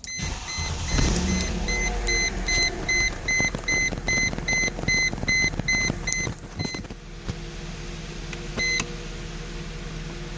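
2002 Mercedes-Benz E320's 3.2-litre V6 started and running, over a rapid dashboard warning chime that beeps about three times a second. The chime stops after about seven seconds, with one more beep near the end, and the engine settles into a steadier idle.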